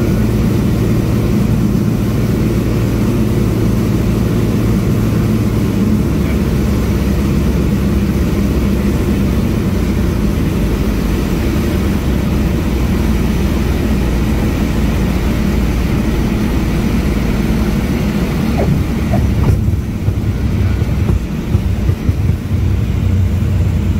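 Light single-engine propeller airplane's engine and propeller running at low power, heard from inside the cockpit, with air rushing past during landing and rollout. The engine note lowers about six seconds in, and the rushing hiss drops away about twenty seconds in as the plane slows on the runway.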